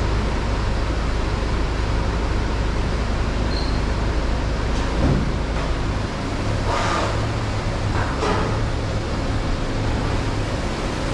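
2017 Porsche Cayenne idling with a steady low engine hum that shifts slightly in pitch about six seconds in, with a couple of brief hisses in the second half.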